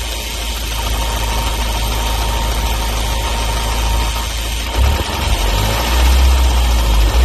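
Ford Focus RS Mk3's 2.3-litre EcoBoost four-cylinder engine idling with a ticking noise of unknown origin. The low rumble grows heavier about five seconds in.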